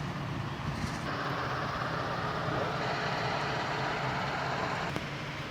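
Diesel engine of heavy earthmoving machinery running steadily, a low hum with a noisy wash over it.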